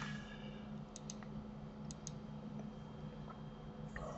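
Two quick pairs of sharp clicks, about a second apart, from a computer mouse or keyboard being worked, over a faint low steady hum.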